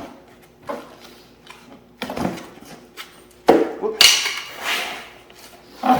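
Small car stereo being pulled out of its box: scattered knocks and taps of the unit and cardboard being handled, with a louder rustle of packaging about four seconds in.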